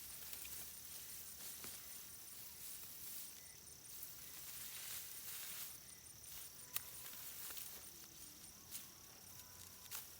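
Insects chirping in a fast, high-pitched pulse over a quiet outdoor background, with a few faint sharp clicks and rustles.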